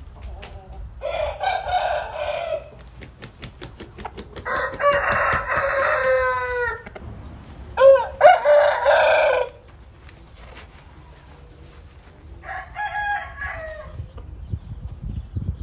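Young roosters crowing: four crows, the longest about two seconds with its pitch falling away at the end, the middle two loudest.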